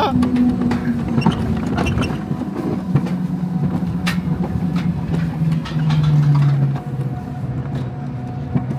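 Mountain coaster cart running down its tubular steel rails: a steady rumbling hum from the wheels that lowers in pitch a little past halfway, with a few sharp clicks and knocks.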